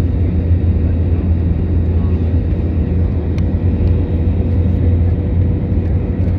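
Jet airliner cabin noise at a window seat beside the underwing turbofan engine during the landing approach: a steady low rumble with a faint constant tone above it.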